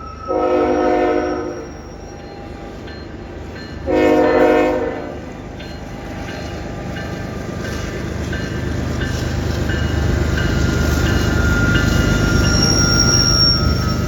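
Diesel freight locomotive's multi-chime air horn sounded twice, each blast a little over a second long, as a friendly toot. Then the low rumble of the lead locomotives grows steadily louder as the train approaches slowly.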